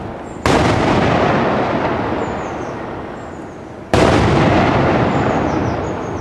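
Daytime aerial firework shells bursting: two loud bangs about three and a half seconds apart, each followed by a long rumbling echo that slowly dies away.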